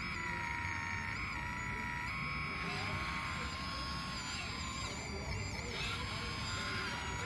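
High, steady electric whine of an RC excavator's motors, with the pitch dipping and recovering briefly several times as the machine takes load.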